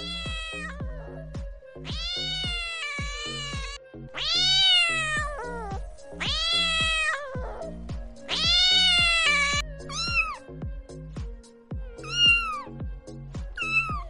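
Domestic cats meowing over and over, about eight meows, several of them long and drawn out, each rising then falling in pitch, over background music with a steady low beat.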